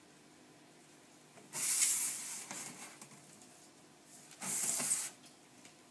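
Two short bursts of rustling as gloved hands handle sliced bread on a paper-covered counter. The first comes about a second and a half in and lasts about a second; the second, a little shorter, comes near the end.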